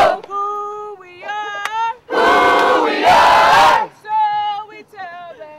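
A group of students chanting a team cheer in call and response. A few voices call out a line, the whole group shouts back loudly about two seconds in, in two bursts, and then a few voices call again.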